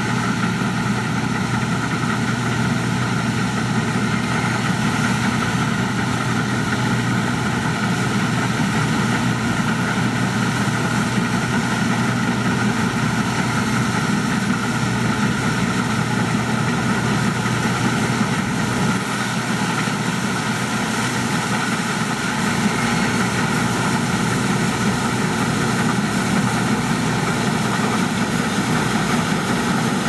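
Case IH Axial-Flow combine harvester running steadily while harvesting, its engine and threshing machinery making a loud, unbroken mechanical drone.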